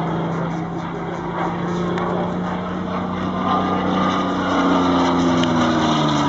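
North American P-51D Mustang's Packard Merlin V-1650-7 supercharged V12 engine droning in a fly-by, growing louder as the aircraft comes closer; near the end its pitch drops as it passes.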